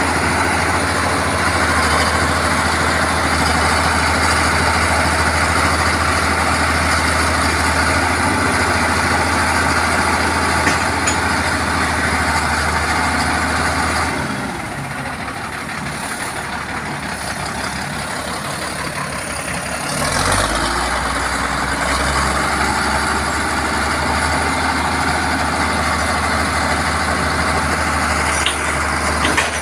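Heavy construction-machine diesel engine running with a steady deep hum. About halfway the hum falls away for several seconds, then comes back deeper.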